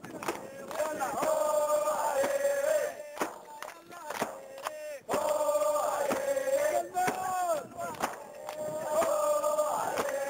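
A crowd of people chanting a short sung phrase in unison, holding long notes, three times over, with claps or sharp knocks in between.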